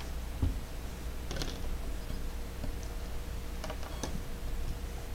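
A few light, separate clicks and taps of small plastic phone parts being handled and pried apart, over a steady low hum.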